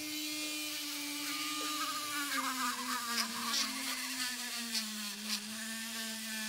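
Handheld rotary tool with a small wire brush wheel spinning against a rusty screw held in pliers, wire-brushing the rust off: a steady high whine that dips slightly in pitch about two seconds in, with scratching and a few sharp ticks over it.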